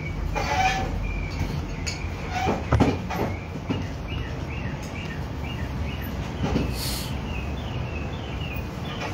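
A coal forge fire is being blown with a hand-worked bellows, giving a steady low rush of air. There are a few metal clinks a little before the midpoint and a brief louder rustle a couple of seconds later. In the second half, a short, high, falling chirp repeats about twice a second.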